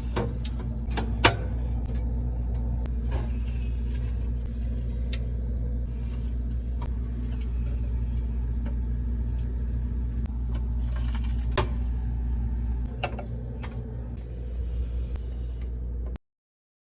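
Drink cans and bottles being set into a fridge: scattered sharp clinks and knocks over a steady low hum. The sound cuts off abruptly near the end.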